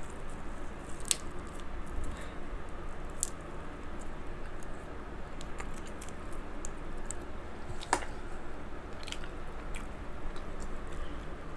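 Close-miked eating of king crab legs: wet chewing and squishing with scattered sharp clicks, the sharpest about eight seconds in, over a steady low fan hum.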